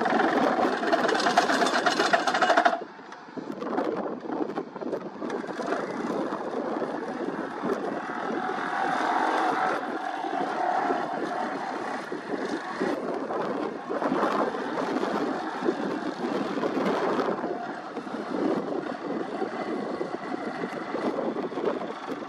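Excavator-mounted vibratory pile hammer and the excavator's engine running as a steel sheet pile is vibrated into the ground: a dense, steady mechanical noise, louder for about the first three seconds, then dropping a little and carrying on.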